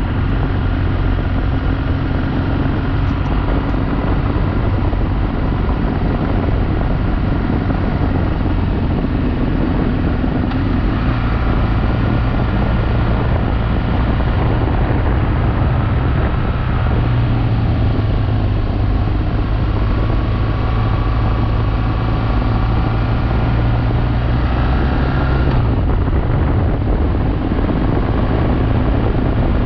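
Adventure motorcycle's engine running while riding at speed, with wind rushing over the microphone. The engine note steps up about a third of the way through and drops back near the end.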